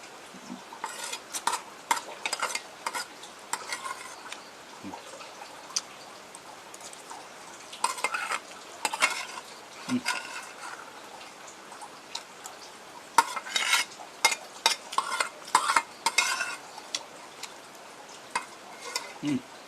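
Eating from a bowl of boiled instant noodles: a spoon and fork scraping and clinking against the bowl in three bursts of quick clicks and scrapes, a few seconds apart.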